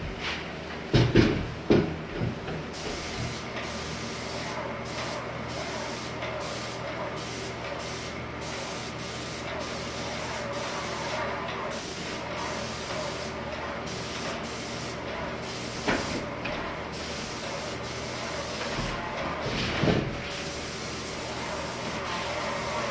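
Airless paint sprayer spraying pre-catalyzed lacquer: the gun hisses in stretches that start and stop as the trigger is pulled and released, over a steady hum. A few sharp knocks near the start, and more later on.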